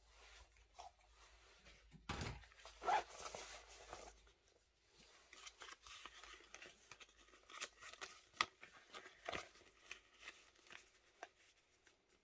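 Paper banknotes and a veg-tan leather wallet being handled, as a folded wad of notes is worked into the wallet: crisp rustling and crinkling. There is a thick burst of rustling about two seconds in, then a run of short, sharp crackles.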